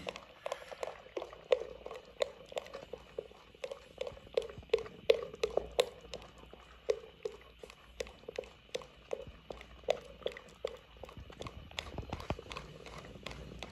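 Wooden masher beating and churning thick mutton hareesa in a clay pot: a steady run of soft knocks and squelches, about two to three a second. The mixture is being pounded until it turns smooth and uniform.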